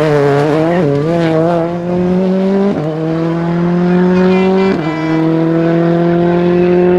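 Citroën C3 R5 rally car's turbocharged four-cylinder engine accelerating hard. The pitch climbs steadily in each gear and drops sharply at three quick upshifts, about two seconds apart.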